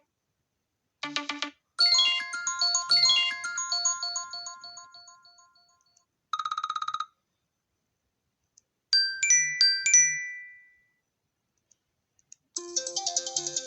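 iPhone ringtones and alert tones played one after another, with short silences between them. First a brief pulsing tone, then a chime melody of bell-like notes that ring and die away, a short fast pulsing tone, and a few quick bright notes. A busier, rapidly repeating tune starts near the end.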